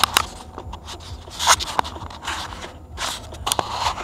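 Handling noise from a dash camera being picked up and turned: irregular scraping, rubbing and sharp clicks of the camera body and mount against the microphone.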